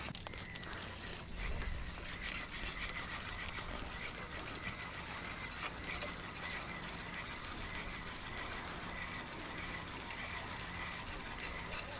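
Spinning reel being cranked steadily, a mechanical whir with fine ticking, as a hooked fish is reeled in on a float rod.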